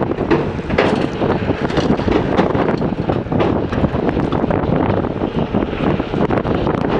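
JCB 3DX backhoe loader's diesel engine running, with wind buffeting the microphone and scattered short knocks.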